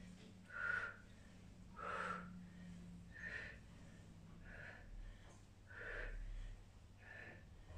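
A woman breathing out hard in a steady rhythm while exercising, six short puffs of breath about one every second and a half, in time with side bends from a wide squat.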